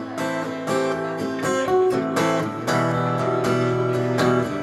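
Acoustic guitar strummed in a steady rhythm, its chords ringing on between the strokes.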